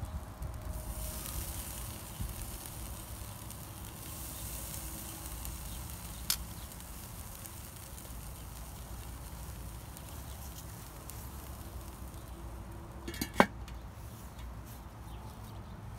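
Bratwursts and corn on the cob sizzling faintly on a charcoal kettle grill's grate over hot coals, under a steady low rumble. A sharp click about six seconds in, and a loud metal clank a little after thirteen seconds, as the grill's lid goes on.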